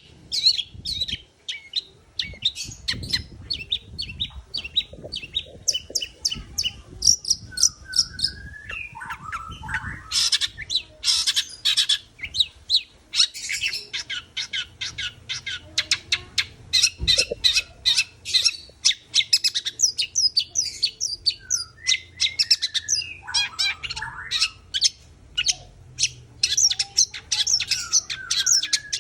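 Long-tailed shrike (cendet) singing without pause: fast runs of high, sharp chirping notes, several a second, broken now and then by lower harsh notes that slide down in pitch.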